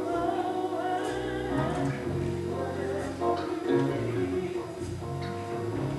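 Soft background music from the church's musicians, sustained chords that change every second or so, underscoring the communion service.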